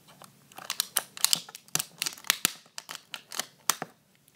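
Scissors cutting open a clear plastic wrapper: an irregular run of sharp snips and plastic crackles, starting about half a second in and stopping shortly before the end.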